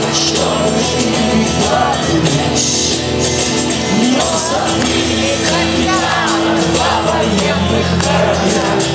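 Live rock band playing, with singing voices over the music.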